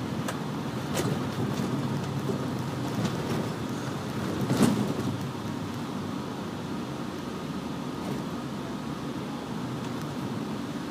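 Steady engine and road noise inside the cabin of a 2005 MCI D4500CL coach under way, with a few short rattles or knocks. The loudest knock comes about halfway through.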